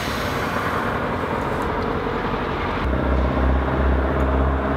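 Steady rushing noise; about three seconds in, a deep droning rumble sets in under it and keeps on.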